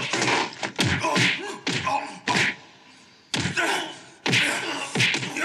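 Fight-scene sound effects: a run of punch and body-blow impacts and thuds, several in quick succession, mixed with short shouts and grunts from the fighters.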